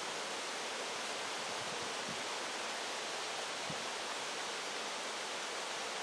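Strong wind rushing steadily through the trees: an even, unbroken hiss that holds one level throughout.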